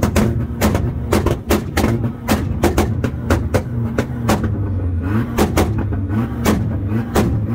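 A car engine held on a two-step launch-control rev limiter, its exhaust banging in sharp pops about four times a second over a steady engine drone.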